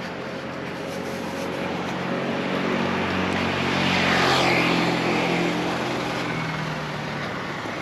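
A motor vehicle passing close by on the street: the engine note and road noise grow louder to a peak about halfway through, then fade as it moves away.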